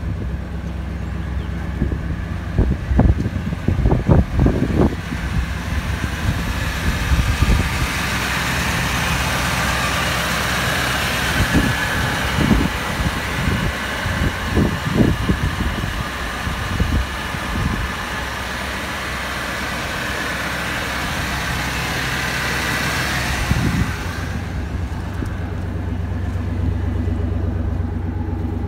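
Chevrolet C/K pickup's engine idling steadily through tall straight exhaust stacks, running again after sitting for two years. A few sharp knocks come through, some about three to five seconds in and more around twelve to fifteen seconds in, and the middle stretch is louder, with more hiss.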